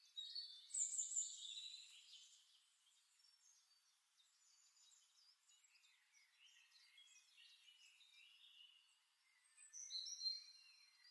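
Near silence with faint, high-pitched bird chirps: a cluster in the first two seconds, scattered weak chirps later, and another cluster shortly before the end.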